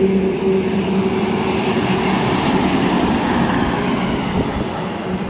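Container truck's diesel engine humming as the truck drives past close by, the hum giving way to tyre and road noise that slowly fades as it moves away.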